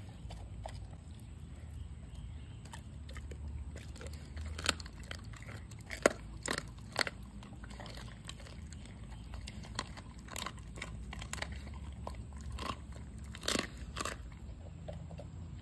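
A dog chewing and crunching through a raw meal that includes turkey neck: irregular wet chewing with sharp crunches, loudest about five to seven seconds in and again near the end, as it licks the bowl clean and its lips.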